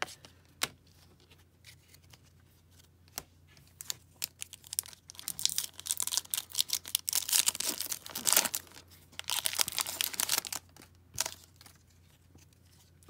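Hockey card pack wrapper being torn open and crinkled, a dense crackling from about four seconds in until about eleven seconds. A few light taps come before it.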